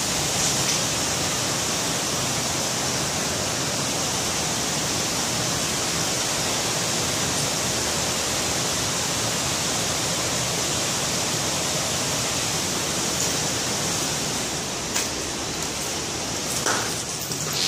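Steady rushing of water, an even hiss with no rise or fall. A few light knocks near the end.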